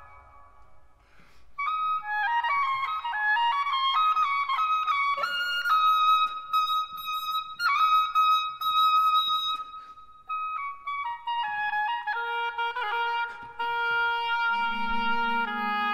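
Solo oboe playing a melody. After a brief pause it plays a quick run of notes, then long held high notes. Near the end the chamber orchestra comes in under it with sustained lower notes.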